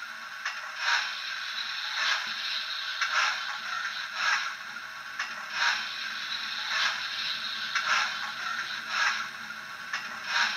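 Hornby TTS sound decoder playing its coal-shovelling effect through the model locomotive's small speaker: a scraping shovel sound repeating about once a second over a steady hiss.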